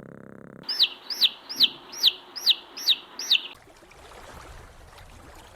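A chick peeping: seven high, falling peeps in a quick even series, about two and a half a second, stopping about three seconds in.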